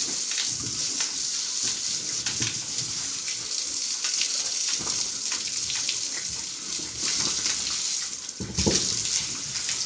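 Steady rush of water washing pigs at bath time, with a brief low sound about eight and a half seconds in.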